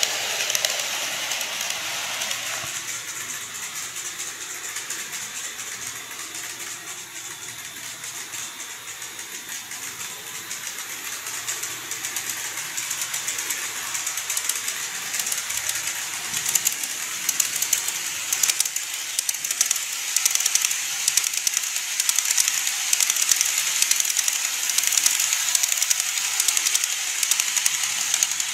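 KATO N-gauge E233 series model train running on its track: a steady high hiss with fast clicking and rattling. It fades over the first few seconds as the train moves away, then grows louder and clickier from about halfway as the train comes close again.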